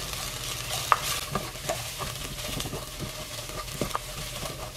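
Chopped onion and minced garlic sizzling softly in oil in a granite-coated pot while a plastic spatula stirs and scrapes them, with small clicks of the spatula against the pot and one sharper tap about a second in.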